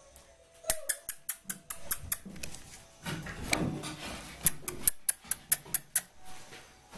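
Eight-week-old Dalmatian puppies' claws clicking and tapping on the floor: a string of sharp, irregular clicks, about twenty over five seconds.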